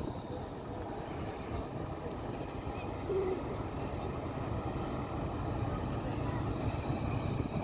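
Steady low rumble of heavy machinery: the diesel engines of mobile truck cranes running at a mine site.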